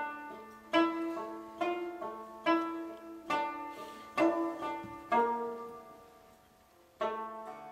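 Plucked long-necked lute playing a slow melody, single ringing notes about one a second, each fading away before the next, with a longer pause before a last note near the end.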